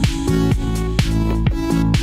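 Electronic background music with a steady beat: a kick drum about every half second under sustained synth tones.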